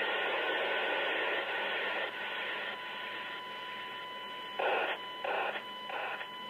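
Streamed police radio scanner feed playing through a speaker: the hiss of an open radio channel with no voice. Steady tones come in about three seconds in, and the hiss breaks into a few short bursts near the end.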